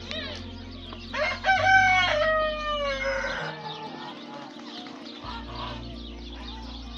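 A rooster crowing once, about a second in. The call is a cock-a-doodle-doo of a few quick rising notes and then one long note that falls away.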